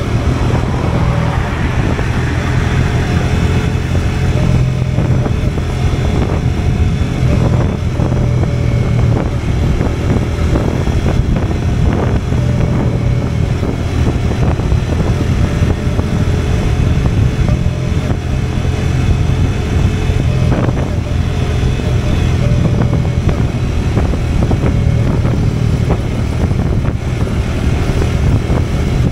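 Motorcycle engine running steadily at cruising speed, heard from the riding bike itself, with wind rushing over the microphone.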